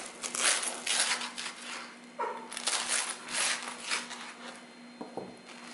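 Kitchen knife sawing through crisp, darkly toasted sandwich bread on a plastic cutting board: a run of crunching, rasping strokes, then a second run after a short pause. A faint steady hum lies underneath.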